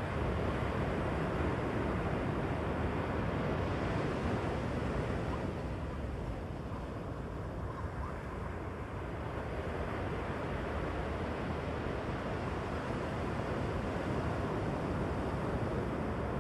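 Ocean surf: small waves breaking and washing up a sandy beach in a steady rush that eases off partway through and then builds again.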